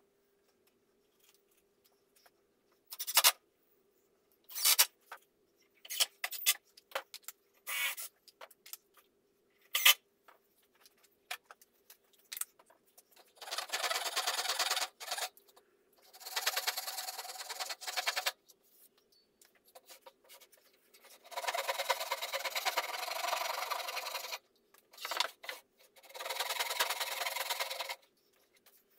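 Sharp knocks and clicks of parts and tools being handled, then a small power tool motor run four times in bursts of about two seconds each.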